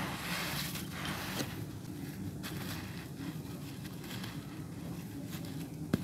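Hands crumbling and squeezing clumps of red dirt, damp and dry, the gritty soil crunching and trickling down. Busiest in the first second or so, with a sharper crackle about a second and a half in, then softer crumbling.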